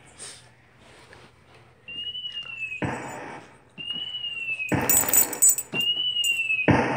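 Electronic keyboard playing its fireworks sound effect: a short whistle that dips slightly in pitch, then a crackling burst, three times about two seconds apart.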